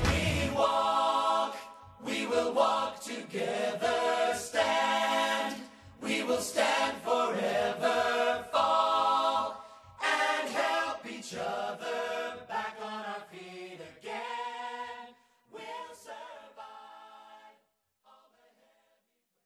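Music: a choir of voices singing in harmony without accompaniment, in phrases with short breaks, growing quieter and dying away near the end.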